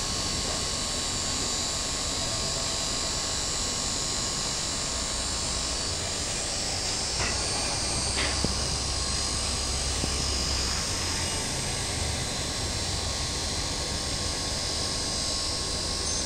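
Electric motor driving a vane pump under test, running steadily with an even mechanical hum and hiss. Two faint clicks come about seven and eight seconds in.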